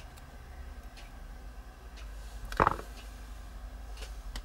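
Quiet handling of small vape tank parts: a few faint clicks and one brief knock about two and a half seconds in.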